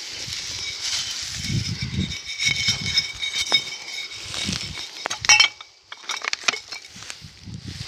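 Old glass bottles clinking and ringing against one another in a wicker basket as they are handled, with a sharp clink about five seconds in, over low rustling and handling noise.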